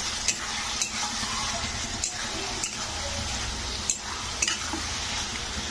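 Pumpkin pieces sizzling as they are stir-fried in a spiced masala in a pan, with a spatula striking and scraping the pan about once or twice a second.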